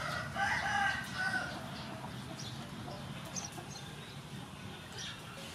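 A chicken calls once, a drawn-out pitched call lasting about a second and a half at the start, over faint background noise.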